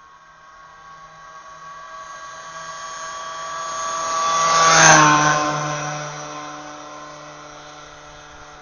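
Honda Camino two-stroke moped, tuned with a 70cc Athena cylinder and a Leovince exhaust, riding past at a steady high engine note. It grows louder, peaks about five seconds in with a drop in pitch as it goes by, then fades away.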